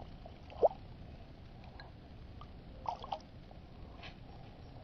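Water dripping and lightly splashing at the surface: one sharp rising plink of a drop just over half a second in, then a few small drips and splashes around three seconds.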